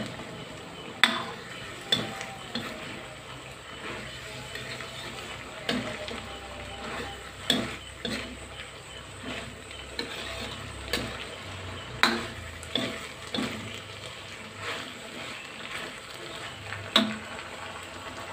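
Stir-fry of sliced luffa, long beans and tofu sizzling in a wok as it cooks through, with a metal ladle clinking and scraping against the wok every second or two.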